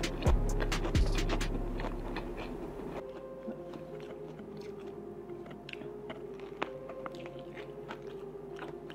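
Close-up mouth sounds of biting and chewing a soft Vietnamese fresh spring roll (rice paper wrapped around turkey ham, vegetables and herbs): soft, wet, irregular chewing and smacking. Background music with a regular beat plays under it and cuts off about three seconds in.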